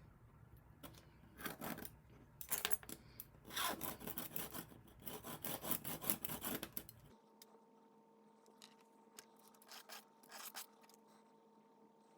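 Irregular bursts of short rubbing and scraping strokes, as of hand work on a small part. About seven seconds in the background changes to a faint steady hum, with a few more brief scrapes.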